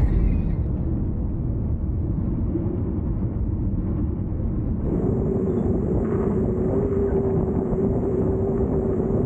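Motorboat engine running steadily under a dense low rumble. About five seconds in, a steady higher hum joins and holds.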